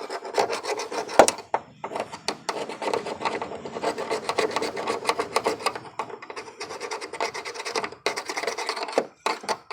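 Rapid scraping and rasping as crusted corrosion is worked off a car battery terminal with a hand tool, with one sharp click about a second in. The build-up is the corrosion that is giving the battery a bad connection.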